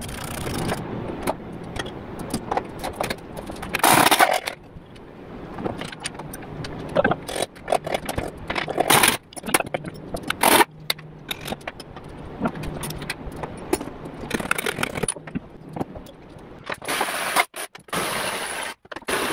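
Wrenches and steel suspension parts clinking and clanking as a front strut is unbolted from a Subaru Impreza's steering knuckle and pulled out. Small metallic clinks and rattles throughout, with louder clanks about four seconds in, twice around nine to ten seconds, and near the end.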